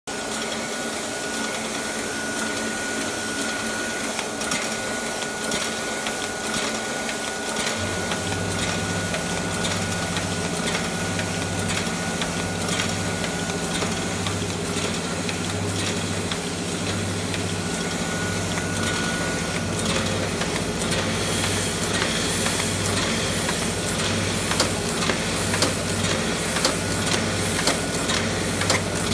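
Ryobi 3302M two-colour offset printing press running with a steady mechanical clatter and a thin high whine. About eight seconds in, a low hum starts, pulsing about once a second. Sharp ticks grow more frequent in the second half.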